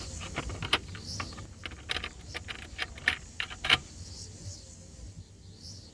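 Hands working small controls in a vehicle cab: a run of sharp, irregular clicks and light rattles that stops about four seconds in.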